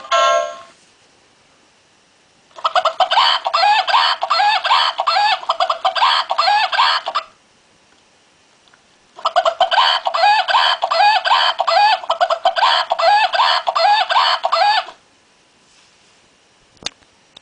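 Plush rooster toy playing a recorded chicken clucking, a fast run of short calls, in two bouts of about five seconds each, set off by squeezing its throat. Its song cuts off just at the start, and a single click comes near the end.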